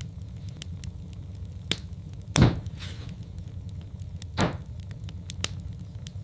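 Log fire in a fireplace crackling over a steady low rumble, with scattered small snaps and two louder pops about two and a half and four and a half seconds in.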